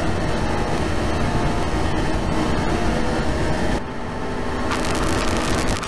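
Loud, dense rumbling drone with faint steady tones, the sound loop of an animated character 'band' soundtrack. Its upper hiss drops away for about a second around four seconds in.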